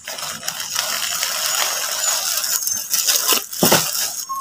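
A plastic courier mailer and the clear plastic bags around folded shirts crinkling and rustling as the shirts are pulled out of the mailer, with a louder rustle about three and a half seconds in.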